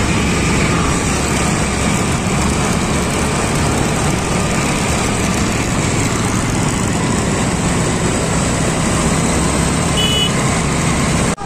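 Motorcycle engines running with wind rushing over the microphone as a group of motorcycles rides along the road: a steady, loud noise. A brief high beep sounds about ten seconds in.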